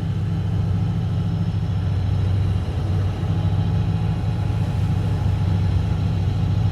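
A sailboat's inboard engine running steadily under way, a constant low hum.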